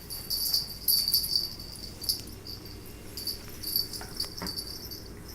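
Young puppies whining and squealing, a string of short, very high-pitched cries several times a second.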